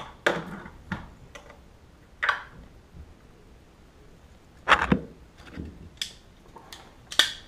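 Sharp plastic clicks and knocks, about nine in all and irregularly spaced, as toilet bolt caps are pushed and snapped onto the base of a toilet. The loudest is a double click a little before five seconds in.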